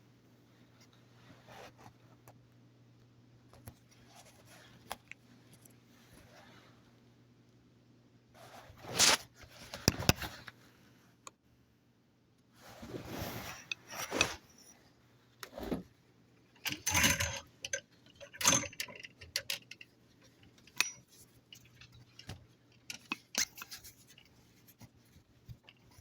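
Scattered handling noises: short clicks, rattles and rustles of small hard objects being moved, the loudest clusters about nine, thirteen and seventeen seconds in, over a faint steady low hum.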